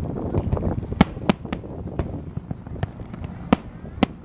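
Fireworks going off: three sharp bangs in quick succession about a second in and two more near the end, over a continuous low rumble and crackle.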